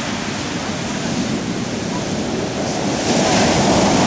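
Storm surf: waves breaking and rushing on the shore, a steady roar of water that swells louder about three seconds in as a bigger wave comes in.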